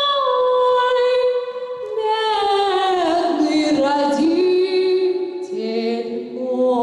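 A woman singing a cappella into a handheld microphone in long held notes. Through the middle her voice slides slowly down in pitch, then settles on a lower held note near the end.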